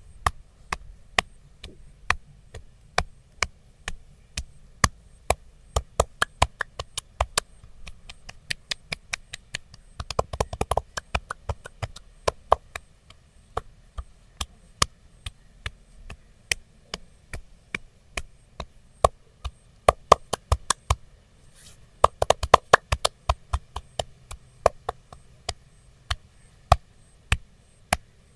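Wooden massage sticks tapping on a person's head and back in sharp, separate strikes about two a second, breaking twice into quick rapid flurries: once about ten seconds in and again about twenty-two seconds in.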